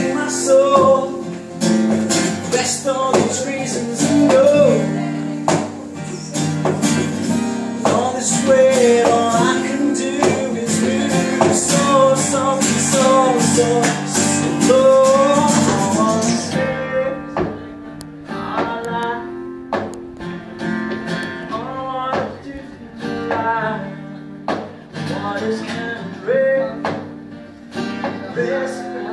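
Steel-string acoustic guitar strummed with a man singing along, a live solo song. About two-thirds of the way through, the bright strumming drops away and the guitar goes on more softly under the voice.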